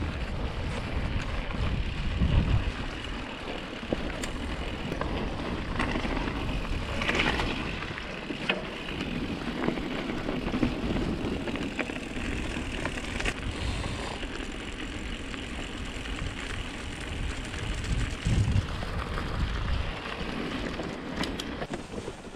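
Mountain bike being ridden over a snowy forest trail: the steady hiss of the tyres rolling on snow and dirt with scattered clicks and rattles from the bike, and wind buffeting the microphone in low surges now and then.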